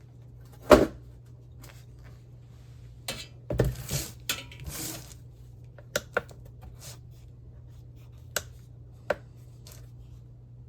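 Sheet-steel monitor frame and small metal parts knocking and clattering against a hard work surface as they are handled. There is one sharp knock about a second in, a burst of clattering around the middle, then a few light clicks.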